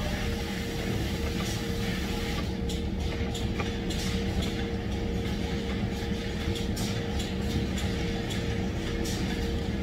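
Steady drone of factory machinery with a constant hum, and a few faint clicks as rubber hoses are handled on the workbench.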